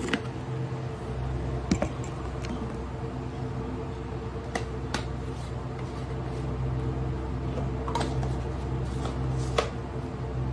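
A steady low hum with a few light clicks and taps from a glass mug being handled close to the microphone.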